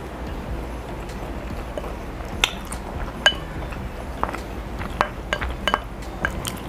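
A wooden spoon clinking and scraping against a ceramic bowl while eating, in a handful of scattered light knocks.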